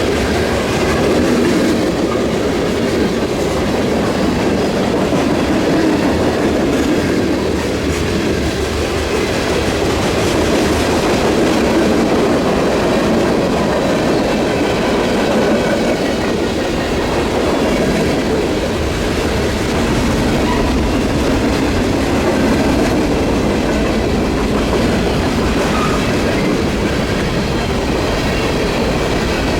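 Freight train cars rolling past, their steel wheels running steadily on the rails.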